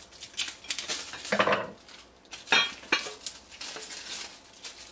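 Amber Corning Visions glass-ceramic pot and its glass lid being handled: a string of short clinks and knocks of glass against glass and the cutting board, with crinkling of the plastic wrapping being taken off.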